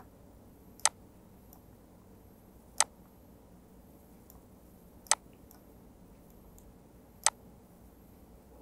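Four single computer mouse clicks, sharp and short, about two seconds apart, over faint background hiss.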